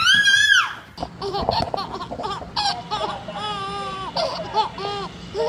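Baby laughing: a high squealing laugh that rises and falls for about a second, then a string of short giggles in quick succession.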